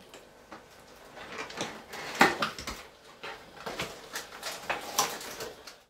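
Silicone rubber puppet being pulled and peeled out of its mould, an irregular run of crackles and rustles, loudest about two seconds in.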